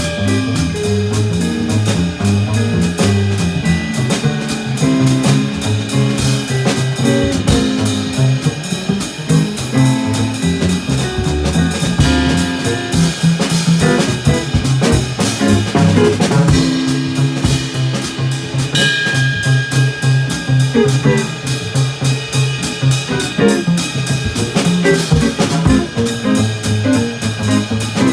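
Instrumental jazz playing on drum kit and guitar over a stepping low bass line, continuous and fairly loud.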